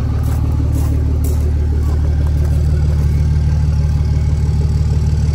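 Dodge Ram pickup's turbocharged engine idling steadily.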